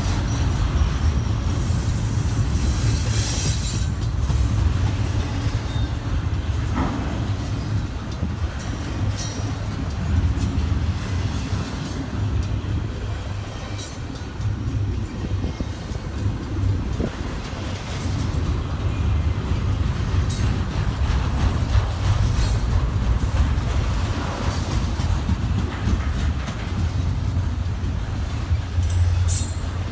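CSX freight train rolling by: a steady low diesel locomotive rumble with the noise of rail car wheels on the track.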